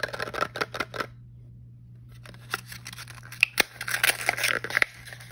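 Crinkling and crackling of a small plastic blind-box pod being handled and its printed lid peeled back by the fingers. A quick run of sharp crackles comes in the first second, then after a short pause a longer, denser stretch of crackling and peeling.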